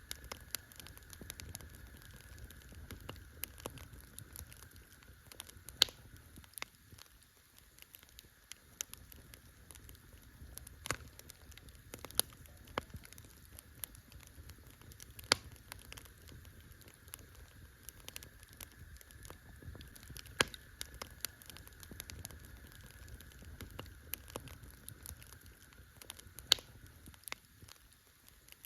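Wood campfire crackling: irregular sharp pops and snaps, a handful of them louder, over a low steady rumble of the burning fire.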